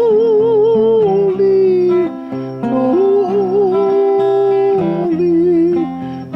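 A voice singing a Hawaiian-language hymn in long held notes with a wide vibrato, over instrumental accompaniment of sustained chords.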